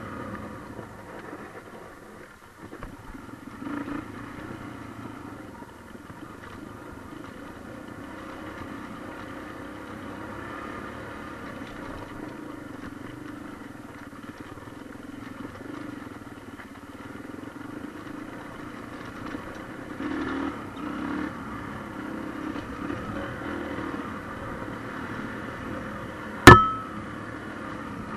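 Trail motorcycle engine running at low, steady revs while riding over a muddy dirt track, with the rattle of the ride. Near the end a single sharp, loud knock rings out briefly.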